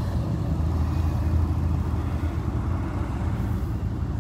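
Steady low rumble of road traffic, with no single event standing out.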